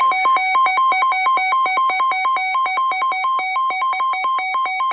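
Electronic alert tone, loud and buzzy, switching rapidly back and forth between two pitches in an uneven pattern.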